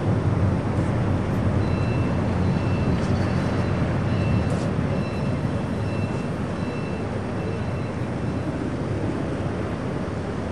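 The Hurtigruten coastal ship MS Trollfjord's engines give a steady, deep rumble as the ship comes alongside the quay to dock, easing slightly in loudness.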